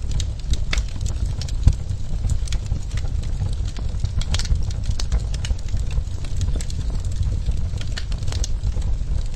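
Wood fire crackling in a fireplace: irregular sharp pops and snaps over a steady low rumble of the flames, with one louder pop a little under two seconds in.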